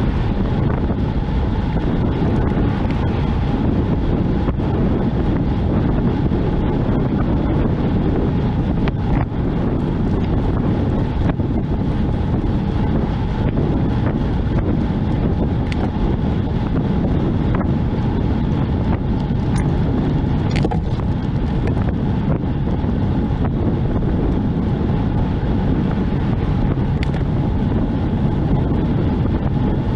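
Wind rushing steadily over the microphone of a bicycle-mounted camera while riding, with road and vehicle noise underneath and a faint steady hum.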